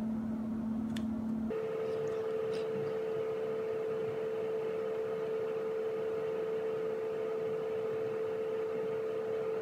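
A steady hum in a small room, one even tone that jumps abruptly to a higher pitch about a second and a half in and then holds there; a faint click about a second in.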